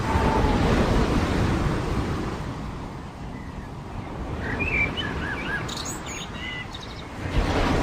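Surf washing onto a beach: a wave surges at the start and fades, and another swells near the end. Small birds chirp in short, quick calls in between.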